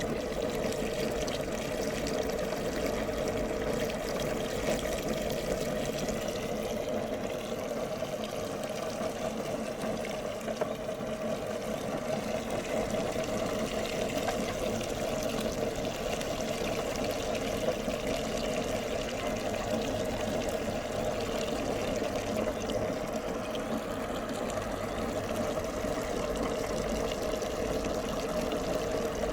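Electric meat grinder running steadily while grinding jelly candy.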